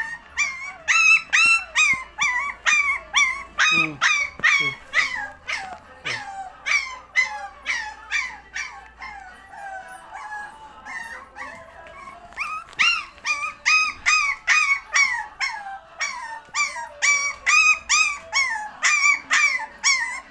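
Puppy whining and yelping in a steady run of short, high-pitched cries, each falling in pitch, about two a second. The cries grow quieter and sparser for a few seconds in the middle before picking up again.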